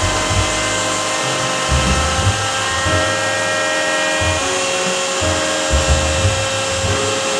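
Router spindle of a CNC milling attachment running steadily with a high whine while it cuts walnut. Lower motor hums start and stop every second or so, with tones shifting pitch as the axes move.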